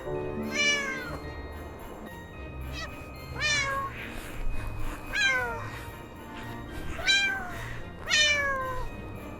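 Cat meows: five short calls, each falling in pitch, spaced a second or two apart over soft background music.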